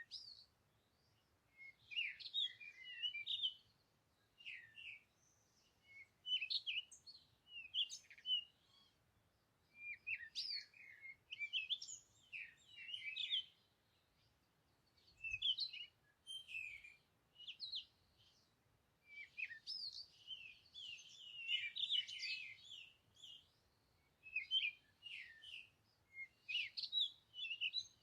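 Small birds chirping and twittering in short clusters of quick calls, a burst every second or two.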